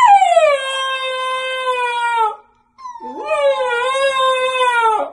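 Husky puppy howling: two long howls, the first falling in pitch and then held, the second rising and then held with a slight waver.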